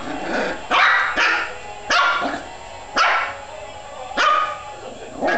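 West Highland White Terrier puppy barking: about five barks, roughly one a second.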